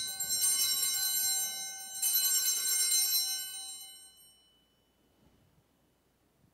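Altar bells rung twice at the elevation of the host, struck again about half a second and two seconds in, then ringing on and fading away after about four seconds.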